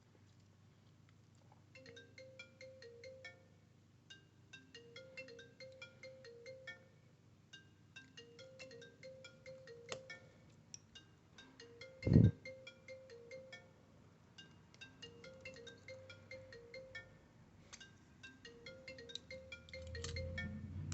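A short chiming melody of quick high notes, looping phrase after phrase like a phone ringtone. One sharp knock cuts in about twelve seconds in.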